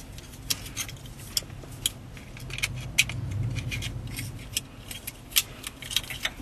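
Irregular sharp clicks and light rattles of plastic wiring connectors and their metal terminal pins being handled, as pins are pulled from the radio's connector and moved into an aftermarket interface harness.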